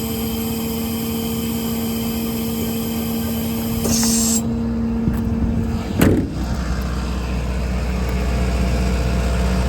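Hydraulic outrigger on a service-truck crane retracting, with a steady hydraulic whine that stops with a single clunk about six seconds in. A short hiss comes about four seconds in, and a low steady rumble carries on after the clunk.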